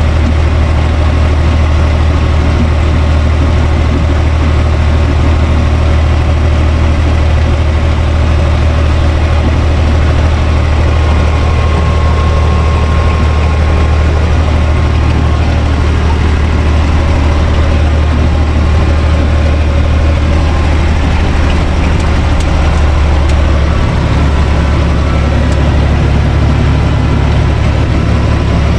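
Universal 445 DT tractor's four-cylinder diesel engine running steadily as the tractor drives across the field, heard from inside its cab. Its note shifts a little near the end.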